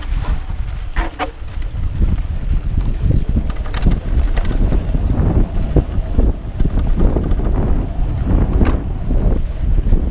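Wind rushing over a GoPro's microphone as a mountain bike rides dirt singletrack at speed: a constant low rumble with frequent irregular rattles and knocks from the bike over bumps in the trail.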